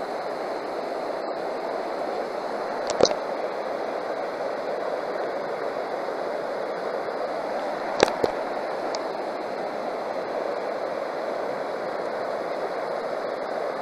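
River water rushing steadily over a shallow, rocky riffle. Two brief sharp clicks cut in, about three and eight seconds in.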